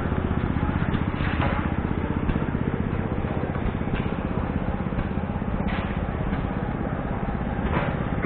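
An engine running steadily with a fast, even chugging beat, with a few faint knocks over it.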